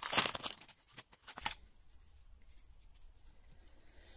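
Foil wrapper of a Pokémon TCG booster pack crinkling and tearing as it is opened, a dense burst of rustling in the first half second, then a few light rustles and clicks that die away after about a second and a half.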